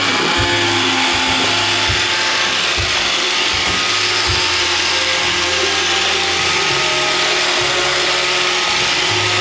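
iRobot Roomba 560 robot vacuum running its cleaning cycle: a steady whir from its vacuum and brush motors, with a lower hum that comes and goes and a few light taps in the first half.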